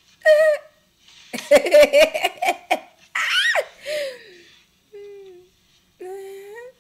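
A woman laughing hard in several bursts, with a quick run of laughs about two seconds in and a high rising squeal of laughter about three and a half seconds in.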